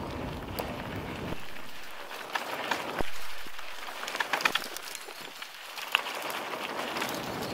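Mountain bike descending rough ground: wind rushing over the microphone, then a stretch of rattling clicks from the bike, with a thump about three seconds in.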